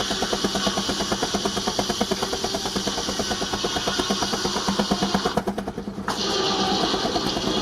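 Baker 19-65 Uniflow steam traction engine running under load, with rapid, even exhaust beats and a steady hiss that cuts out briefly about two-thirds of the way through and then comes back.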